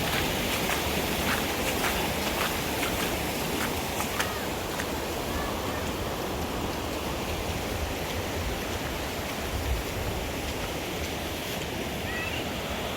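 A creek running high in flood, its water rushing steadily, with a scatter of sharp ticks in the first few seconds.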